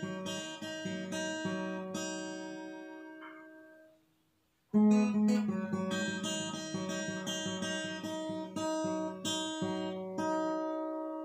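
Acoustic guitar played in picked, arpeggiated notes that ring over one another. About four seconds in the notes fade out and go silent, and under a second later the picking starts again, ending on a chord left ringing.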